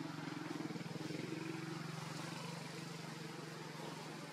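A motor running steadily: a low, even engine hum that eases off slightly toward the end.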